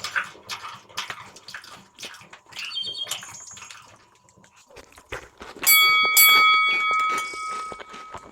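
Close-miked eating: chewing and mouth smacks with quick clicks of utensils. A loud, steady high-pitched whine starts a little after five seconds in and lasts about two and a half seconds.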